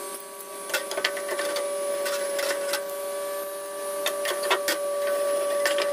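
A forge fire burning under forced air: a steady mechanical whine from the air blower, with the burning fuel crackling and snapping at irregular moments, the loudest snaps around a second in and about four and a half seconds in.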